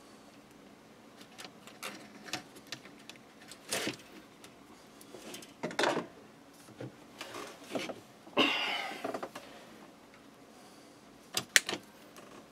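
Scattered clicks, taps and knocks of hands and a small tool working on an opened toaster's wiring and loose circuit board. A longer scraping rustle comes about eight and a half seconds in, and a quick pair of clicks near the end.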